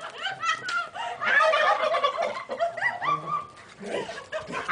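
Rooster squawking in a rapid, chattering run of short rising calls, busiest in the middle, the agitated cries of a bird fighting off a dog.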